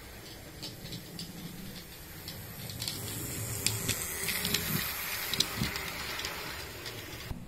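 Model railway passenger train, a steam-outline locomotive pulling coaches, running past on the layout track: a rattle of wheel clicks over the rail joints over a low motor hum, growing louder as it passes about halfway through.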